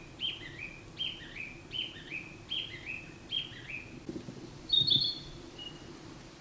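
Male Narcissus flycatcher singing, repeating a two-note phrase about five times, a little under a second apart, in imitation of a Chinese bamboo partridge's call. About five seconds in come a few louder, higher notes of its own song.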